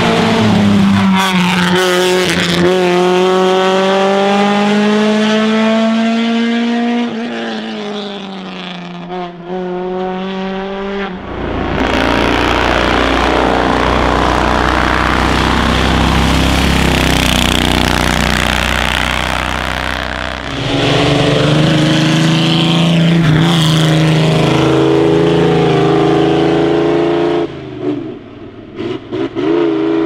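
Classic racing car engines running hard under acceleration up a hill, passing one after another. A high engine note climbs slowly for about ten seconds. Then comes a deeper, rougher rumble, then another steady engine note that drops away near the end.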